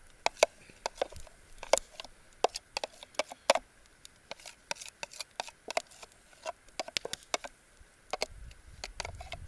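Wood campfire crackling, with irregular sharp pops and snaps several times a second.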